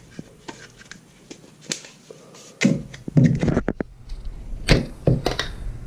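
Plastic tub of plumber's putty being handled and its snap-on lid pried off: a string of sharp plastic clicks and knocks, sparse at first and busier and louder from about halfway.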